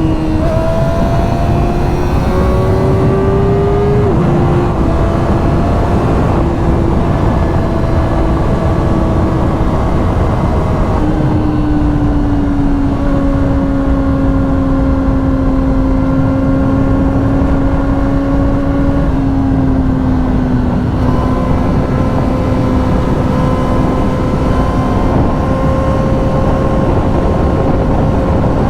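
Kawasaki ZX-4RR's inline-four, fitted with a Graves carbon slip-on exhaust, running at a fairly steady speed on the road, its note stepping down slightly a few times, with heavy wind rush on the microphone.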